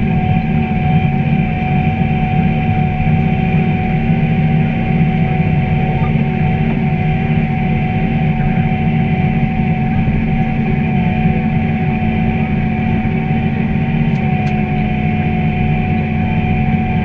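John Deere 8430 tractor's diesel engine running steadily under load while pulling a planter across a field, with a constant high whine over the engine.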